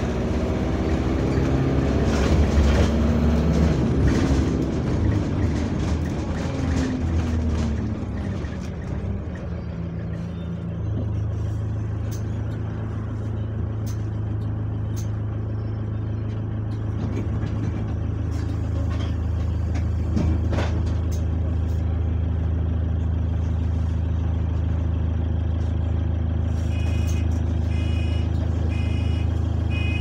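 A bus engine heard from inside the saloon, dropping in pitch as the bus slows for about ten seconds, then idling steadily at the stop. Near the end a run of short, evenly spaced beeps sounds.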